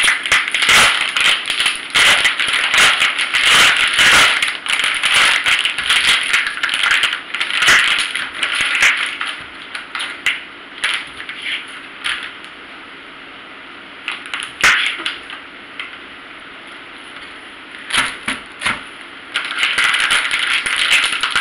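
Plastic packaging crinkling and rustling as a sausage is unwrapped, then a few sharp clicks of a knife on a wooden cutting board as it is sliced, and more plastic crinkling near the end.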